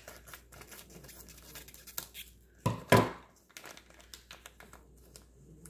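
Packaging crinkling as it is handled and opened by hand, with a short, louder tearing burst about three seconds in.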